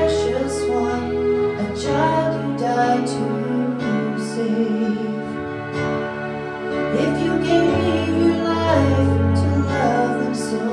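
A woman singing while accompanying herself on a Roland RD-700 digital stage piano, with sustained chords over low bass notes that change a few times.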